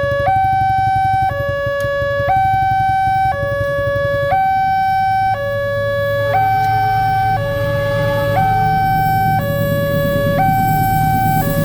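Railway level-crossing warning siren sounding a two-tone hi-lo wail that switches pitch about once a second, over a steady low hum. A rushing noise builds near the end.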